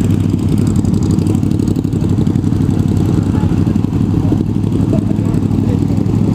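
Motorcycles running at slow walking-pace speed, a steady low engine rumble with no revving.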